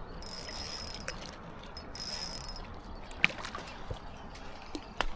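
Fishing reel being cranked: a whirring mechanism in two spells with a steady high tone, then a few sharp clicks.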